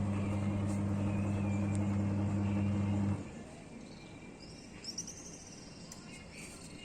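Twin-tub washing machine motor humming steadily and then stopping about three seconds in, the on-off run of the repaired machine. During the pause, faint insects and a short bird chirp.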